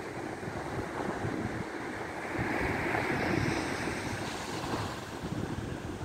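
Strong offshore Santa Ana wind buffeting the phone's microphone in a rumbling rush, over the wash of surf on the shore; the rush swells louder about halfway through.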